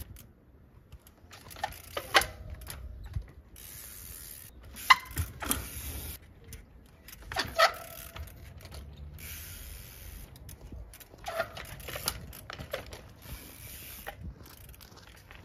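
Trials bike hopping and landing on a railway line: about six sharp clanks and knocks spread over the stretch, some with a brief ring, as the wheels and frame strike the rails and sleepers.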